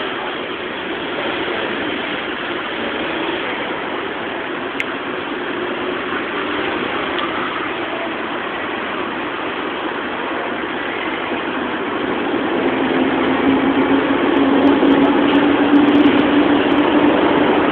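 Steady engine and traffic noise, growing louder in the last few seconds as a steady low hum sets in.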